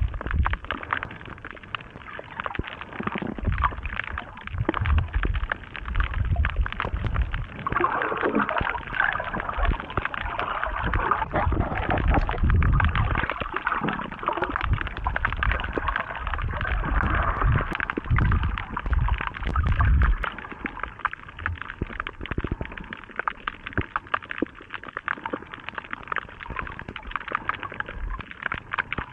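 Underwater sound picked up by a camera held below the surface while snorkeling over a reef: muffled low rumbling surges of water moving against the housing, with many faint crackling clicks throughout. The sound turns brighter and more hissing for several seconds in the middle.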